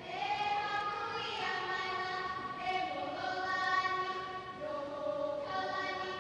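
Young girls' voices chanting a Hawaiian mele in unison for a hula kahiko, long held notes stepping from pitch to pitch with brief breaths between phrases.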